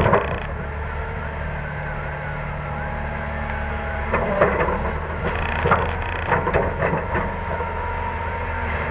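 Heavy diesel machinery running steadily, with a burst of clattering between about four and seven seconds in as the Cat excavator dumps a bucket of coal into the dump truck's bed.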